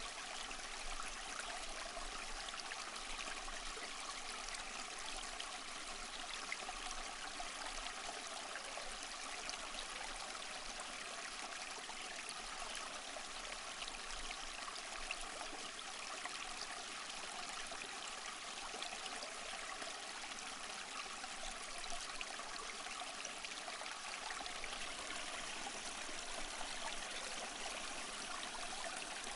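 Small stream flowing, a steady, even rush of water running over stones.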